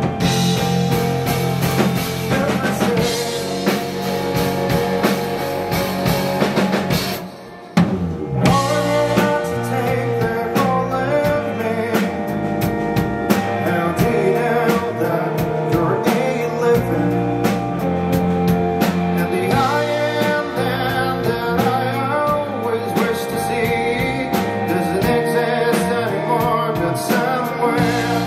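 A live rock band plays: electric guitar, bass guitar and drum kit, with a man singing. About seven seconds in the band stops for under a second, then crashes back in together.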